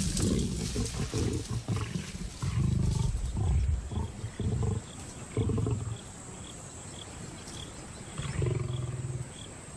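Lions growling and snarling in a clash over a kill as a male forces lionesses off the carcass: a string of loud, rough growls for the first six seconds, then a lull and one more growl near the end.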